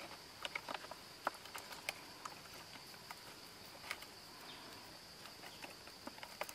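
Light irregular clicks and rustles of hands knotting fibrous cord around a wrapped banana-stem bundle, over a steady high insect drone.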